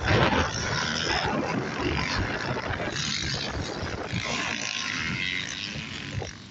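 Motocross dirt bike engines at full race throttle as the bikes pass, a loud rough rasp.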